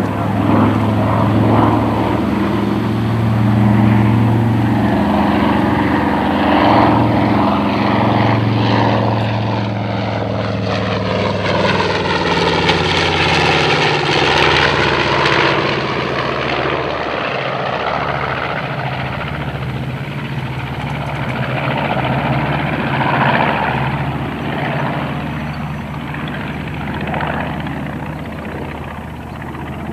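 The two Wright R-2600 radial engines of a B-25 Mitchell bomber droning as it makes a low flypast. The engine note drops in pitch as it passes, with a sweeping, phasing whoosh in the middle, and it fades slightly near the end.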